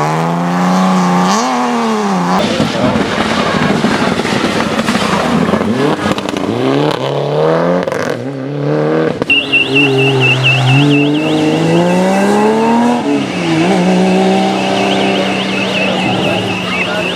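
Rally car engine revving up and down repeatedly, then held at steady high revs. A long, steady high-pitched squeal joins about nine seconds in and carries on.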